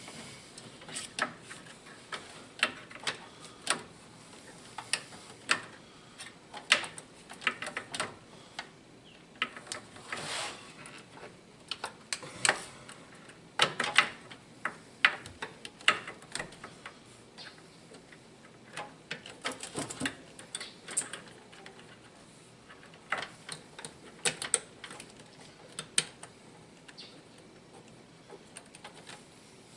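Scattered sharp clicks and taps of hand tools and small metal parts being handled, coming at uneven intervals, some singly and some in quick clusters.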